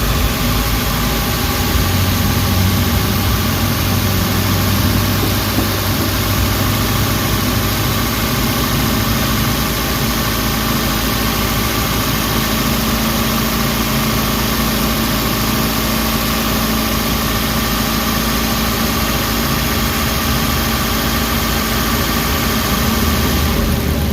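Suzuki Carry engine idling steadily after an XADO engine treatment. It runs smoothly, without the crunching knock and shaking it had before.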